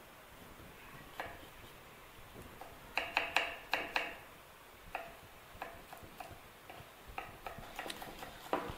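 A knife chopping garlic cloves on a wooden chopping board: sharp, uneven taps of the blade on the wood. A quick flurry of about six comes about three seconds in, then single taps roughly every half second.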